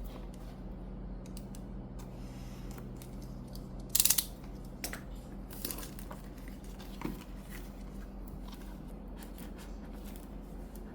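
Earbud packaging being opened by hand: a short, loud tearing rip about four seconds in, followed by scattered smaller clicks and rustles of the box and wrapping. A steady low hum runs underneath.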